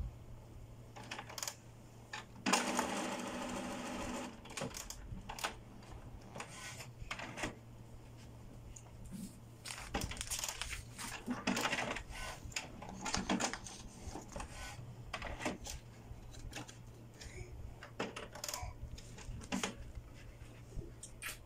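HP Smart Tank 515 inkjet printer at work on a colour copy. A motor whirs for about two seconds near the start, followed by irregular clicks and clatters from its paper feed and carriage.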